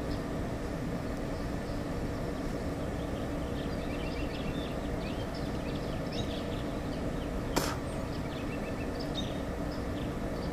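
Steady mechanical hum of factory machinery across the river, with several constant low tones, and birds chirping over it. A single sharp click comes about seven and a half seconds in.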